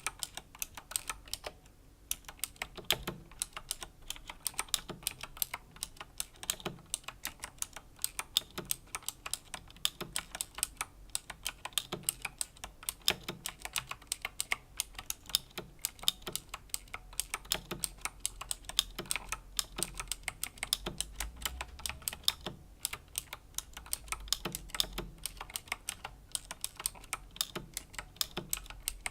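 Razer Green clicky mechanical key switches on a Razer BlackWidow Chroma V2 keyboard being typed on at a slow, steady pace: a constant stream of sharp key clicks with duller thuds as keys bottom out.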